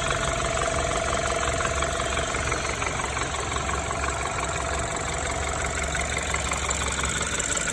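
BMW N20B20 2.0-litre turbocharged four-cylinder engine idling with a steady, rapid rattle, a sign of internal damage after an engine failure.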